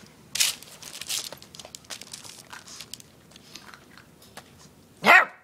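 Puppies moving about on newspaper in a wire pen, making irregular crinkling and crunching noises, then one short, loud puppy bark falling in pitch near the end.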